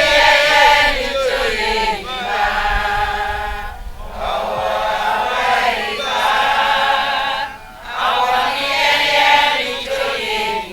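A group of voices singing together in long, held phrases of a few seconds each, with short breaks between phrases.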